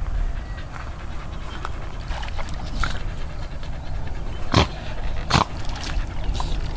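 Staffordshire bull terrier panting and breathing hard as it swims, with water splashing around it. Two short, sharp sounds come a little over halfway through.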